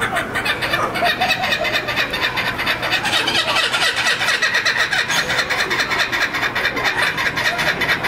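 Laughing kookaburra giving its loud laughing call, a fast unbroken run of repeated notes.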